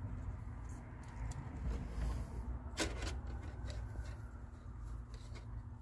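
Faint rustling and small clicks of plastic fuel-line parts being handled as clear hose is worked onto a fitting, with one sharper click about three seconds in, over a low steady rumble.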